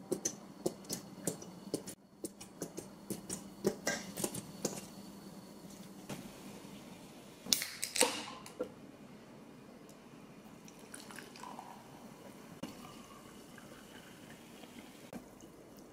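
A run of quick, sharp little taps in the first few seconds, then a couple of louder knocks about halfway, as a glass is set down. Near the end, ginger ale is poured faintly into the glass and fizzes.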